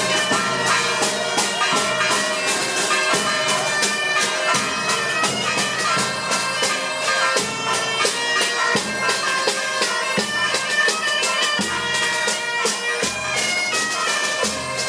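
Asturian bagpipe (gaita) playing a lively tune over its steady drone, with drums beating along.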